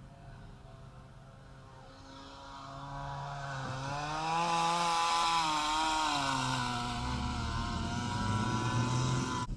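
A motor vehicle engine revving: it grows louder and rises in pitch, holds high for a couple of seconds, then falls in pitch and cuts off suddenly at the end.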